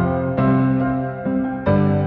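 Background music: slow, sustained keyboard chords, a new chord about every second.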